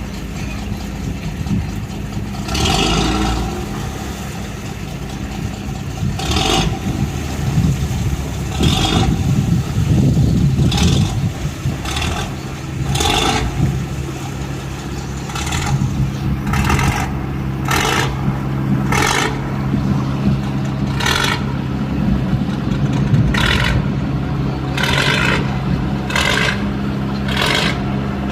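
Cargo boat's Hino six-cylinder diesel engine running steadily. Short hissing or scraping bursts come every second or two over the engine, more often in the second half.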